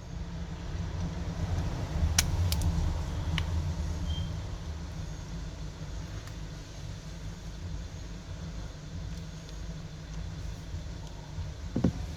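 Low steady rumble in the background, with a few light sharp clicks about two to three and a half seconds in.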